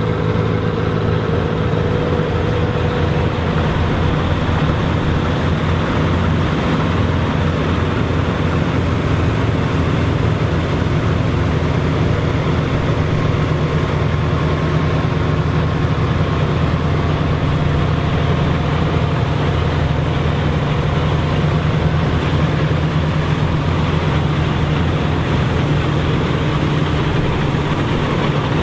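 Dronningborg D900 self-propelled combine harvester running steadily at work, a constant engine hum under dense mechanical noise.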